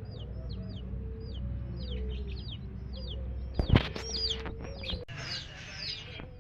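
Baby chicks peeping over and over, each peep a short high note that drops in pitch, with a hen clucking low beneath them. About three and a half seconds in, a few loud sharp knocks come together, followed by a brief rustling.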